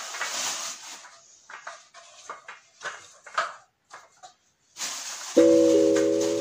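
Small taps and clicks of paper cups being picked up and set down on a tray. About five seconds in, background music with marimba-like mallet notes starts and is the loudest sound.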